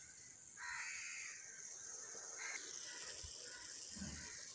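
A crow cawing in the background: one long, harsh call about half a second in, then a shorter one and a few fainter calls, over a faint steady hiss.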